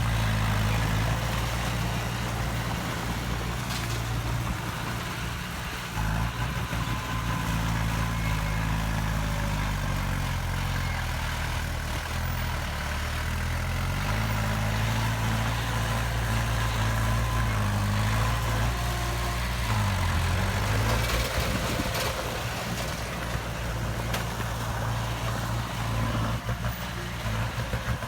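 Heavy construction machine's diesel engine running, its engine speed rising and falling several times.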